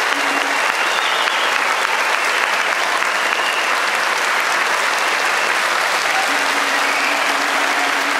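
A large crowd applauding with sustained, steady clapping, with a faint low steady tone in the background at the start and again from about six seconds in.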